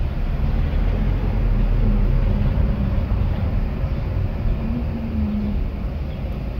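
Wind rumbling and buffeting on the phone's microphone, a steady low roar with a faint hum running under it.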